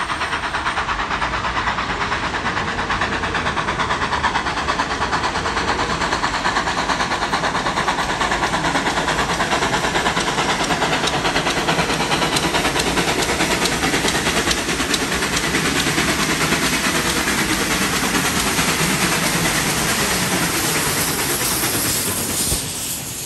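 NSW 59 class steam locomotive 5917 running through the station at speed with a train of heritage carriages, a fast even beat of steam exhaust over a steady hiss and wheel noise. The sound drops away sharply near the end as the engine passes.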